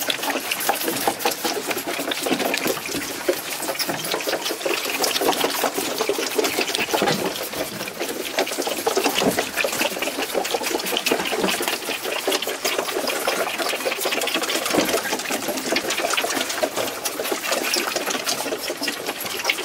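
Several calves sucking milk from the teats of a multi-teat calf feeder: a continuous fast slurping and clicking.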